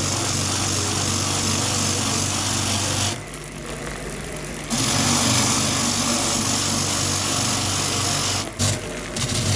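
Power tool running at a steady high speed. It stops for about a second and a half about three seconds in, then starts again, with two brief cutouts near the end.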